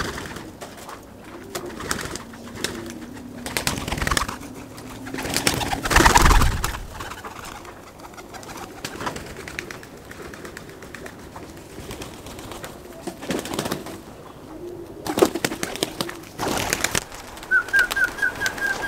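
Domestic pigeons cooing, with loud bursts of wing flapping as the birds are let out of their coop and take off. Near the end there is a quick run of short high-pitched notes.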